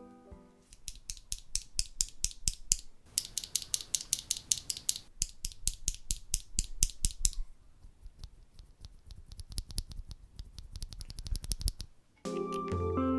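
Rapid small plastic clicks and taps, about five a second, from Veri Peri mechanical keyboard switches being handled and worked on during lubing. There is a brief hiss partway through, and the clicks grow fainter later on. Piano music fades out at the start and comes back near the end.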